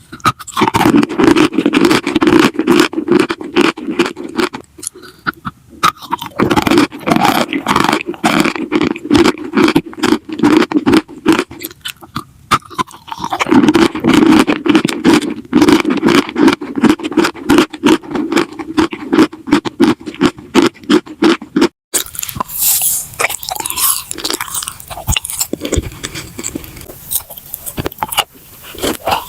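Close-miked ASMR crunching and scraping: a dense run of crackles over a steady low rasp. About 22 seconds in it breaks off and gives way to sparser, lighter crackles.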